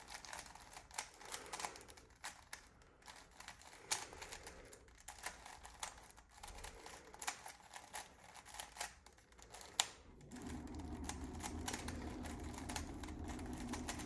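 Rubik's cube layers being turned in quick succession, a rapid run of irregular plastic clicks and clacks as a last-layer corner algorithm is carried out. A steady low hum comes in about ten seconds in.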